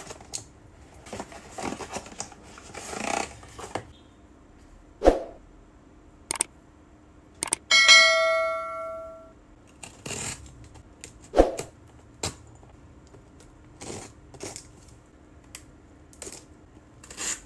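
A small box cutter scraping and slitting packing tape on cardboard boxes in short scratchy strokes and knocks. About eight seconds in, a click and then a bell-like ding, the subscribe-button sound effect, rings and fades over about a second and a half.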